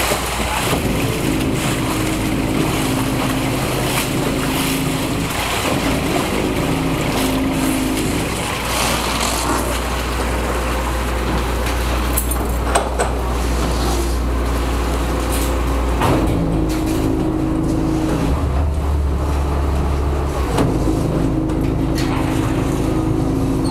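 Small harbour ferry's engine running under the deck with a loud, steady hum, its pitch shifting several times as the boat comes alongside the landing.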